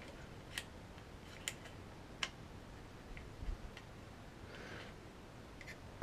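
Homemade wooden quick-release plate being test-fitted into a tripod head's quick-release clamp, making faint light clicks and taps. The three sharpest come in the first couple of seconds, with a short rub about three-quarters through.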